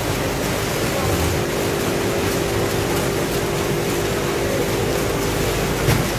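Steady machine din of a snack-packing factory floor: the packaging machines run with a constant hum under a dense hiss, and there is a short knock just before the end.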